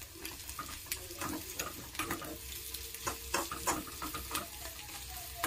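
Steel spoon stirring egg curry in a kadai, with irregular scrapes and clinks against the pan over a faint sizzle of hot oil.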